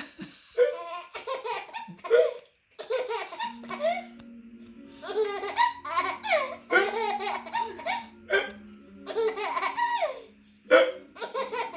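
A baby laughing in repeated runs of short bursts.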